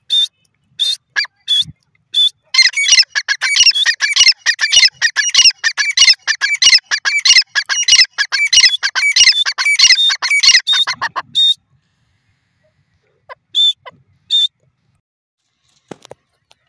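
Grey francolin calling: a few short high notes, then about nine seconds of loud, rapid calls in quick succession, then a few short notes again before it falls quiet.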